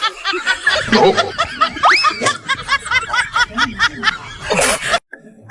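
Laughter: fast, repeated snickering and chuckling, with a quick rising whistle-like glide about two seconds in. It cuts off abruptly near the end.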